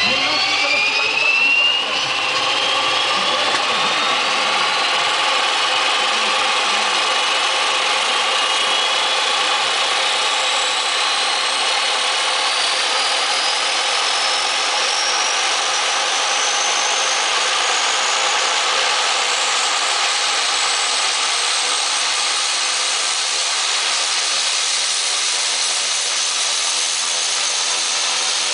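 Turboprop engine of a Cessna 195 spooling up during start: a whine that rises steeply in pitch over the first couple of seconds, then keeps climbing slowly and evens out as the engine settles toward idle, the propeller turning with it.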